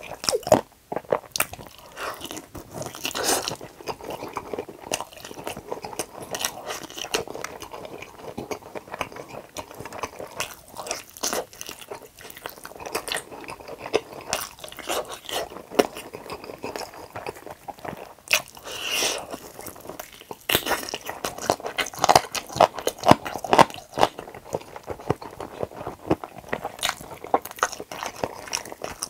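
Close-miked biting and chewing of fried chicken drumsticks dipped in cheese sauce: irregular crisp crunches of the skin and chewing. The loudest bites come in the second half.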